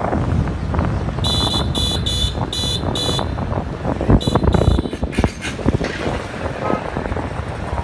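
Vehicle horn beeping in short, high-pitched bursts, five quick beeps and then two more a second later, over the steady rumble of road and wind noise from moving traffic.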